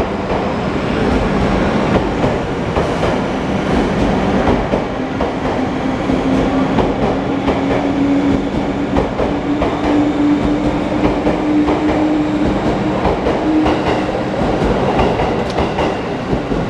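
Electric train running on the rails, its wheels clicking over the track joints. A low motor whine rises slowly in pitch through the middle, as the train gathers speed.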